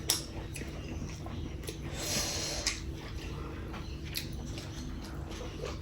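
Close-up mouth sounds of eating chicken curry with rice: chewing with scattered wet clicks and lip smacks, and a short breathy noise about two seconds in.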